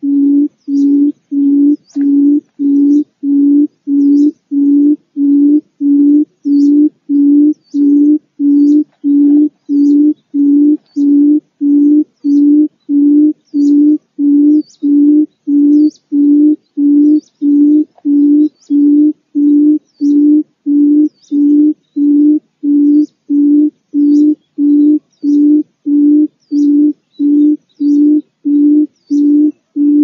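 Barred buttonquail calling: a low hooting note repeated at a very even pace, about three notes every two seconds, played as a decoy call to lure quail to a trap.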